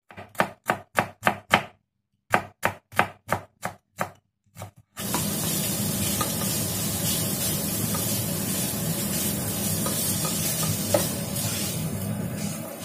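Kitchen knife chopping on a wooden cutting board, about three sharp strokes a second in two quick runs. About five seconds in it cuts to minced pork sizzling steadily in a frying pan as it is stirred with a spatula, with an occasional scrape.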